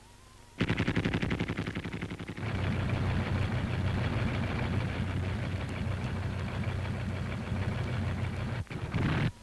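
Tank engines running with a steady low rumble. It comes in suddenly about half a second in as a rapid clatter that settles into the rumble after about two seconds, and it drops out briefly near the end.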